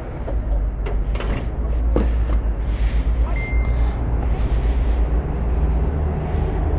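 Petrol-station forecourt noise: a steady low rumble with a few sharp clicks in the first couple of seconds and a short, high electronic beep about three and a half seconds in.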